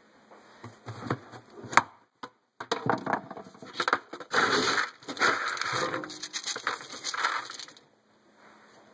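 Dry dog food kibble being scooped and poured into a bowl for a hungry puppy's breakfast, a rustling, crunching rattle lasting several seconds. A sharp knock comes about two seconds in.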